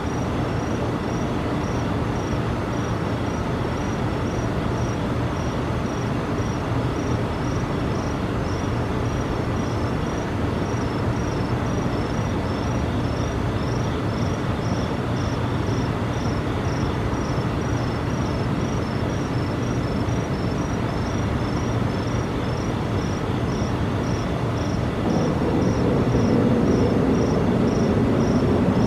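A steady low drone of unknown origin, the mystery noise reported by residents, grows louder about 25 seconds in. Insects chirp over it about twice a second.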